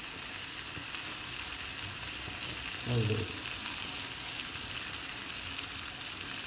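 Vegetables frying in a non-stick pan on a gas hob, a steady sizzle.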